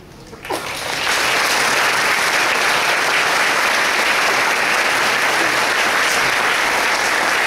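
Audience applauding at the end of a choir song: the clapping breaks out about half a second in, swells to full strength within a second, and then holds steady and dense.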